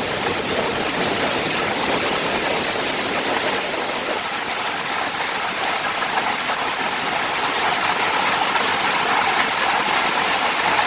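Heavy rain pouring down, a steady hiss that swells a little over the seconds.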